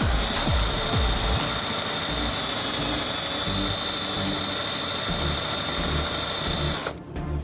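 Small electric drill running with a twist bit, boring a hole through a wooden block on a popsicle stick: a steady high-pitched whine with the rasp of the bit cutting wood. It cuts off abruptly about seven seconds in.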